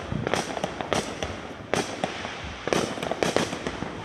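Fireworks going off: a fast, irregular string of sharp bangs, several a second, some louder than others.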